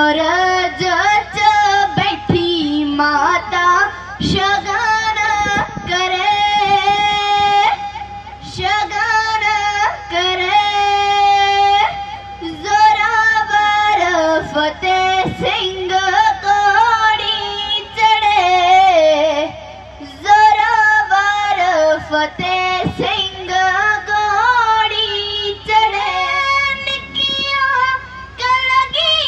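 A young woman singing Punjabi kavishri solo into a microphone, in a high voice with long held notes and quick ornamented turns between phrases.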